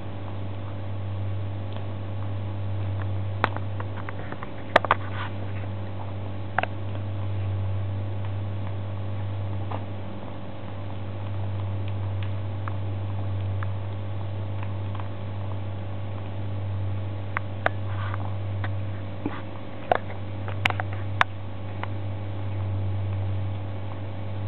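Kitten eating salmon off a plastic plate: scattered small wet clicks and smacks of chewing, with a cluster of sharper clicks a few seconds in and another toward the end, over a steady low hum.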